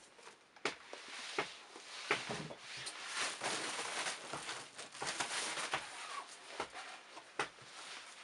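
Used leather shoes being handled and set down on a pile of other shoes: scattered knocks and taps with rustling, thickest in the middle.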